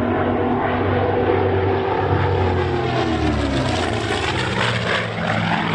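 Propeller-driven aircraft flying past, its engine note dropping in pitch as it goes by about halfway through.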